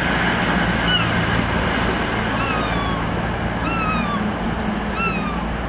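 CrossCountry diesel train running past with a steady low engine hum and rumble. Over it, a short, high, falling call repeats about five times, roughly every second and a half.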